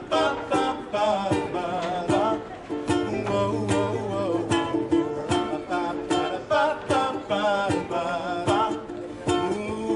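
Live band music in an instrumental break between verses: a strummed string instrument keeps a steady beat under a wavering lead melody.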